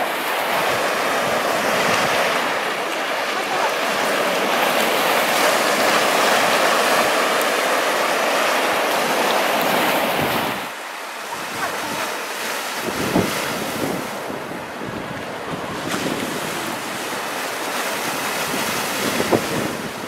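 Sea waves breaking and washing up a sandy beach in a steady rush of surf. About halfway through it drops quieter and less even, with a few sharp splashes of water.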